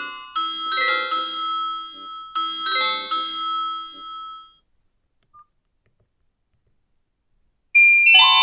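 Nokia 5310 feature phone playing a default ringtone, a melody of short high notes that stops about four and a half seconds in. After a few seconds of silence, another ringtone starts near the end.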